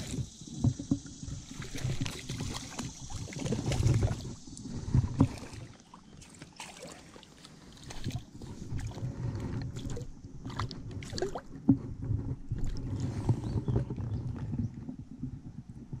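Water sloshing and splashing unevenly, with scattered knocks and clicks; quieter for a couple of seconds near the middle.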